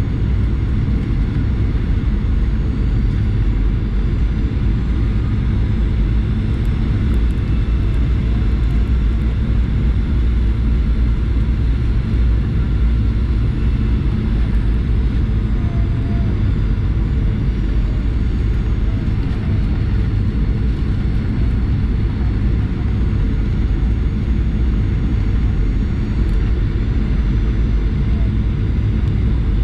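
Steady cabin noise inside a Boeing 737-800 airliner: an even, deep rumble with faint steady tones above it.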